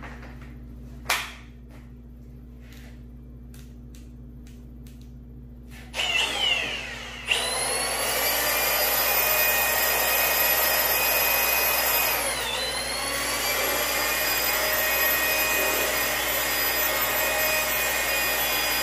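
A power sander's motor spins up with a rising whine about six seconds in, after a few light clicks, then runs at a steady high pitch on the aluminium valve cover. Its pitch dips briefly about two-thirds of the way through, then recovers.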